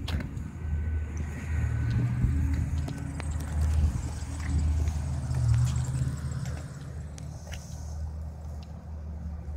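A steady low rumble, with scattered short clicks and rustles.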